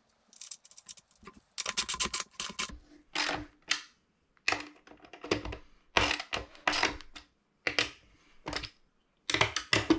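Hand socket ratchet clicking in repeated short bursts of rapid clicks as bolts are tightened into the captain's chair base.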